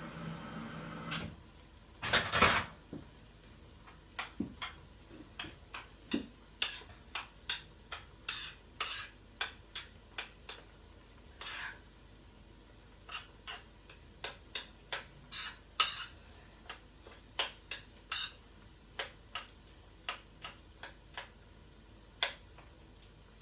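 Cooking utensils and pots clinking and tapping: a run of sharp, separate clicks about one or two a second, with a louder clatter about two seconds in.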